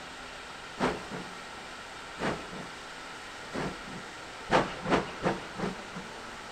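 Steam locomotive exhaust beats over a steady hiss of steam. The beats start slow and well spaced, then come much faster about four and a half seconds in, as when a locomotive is getting under way.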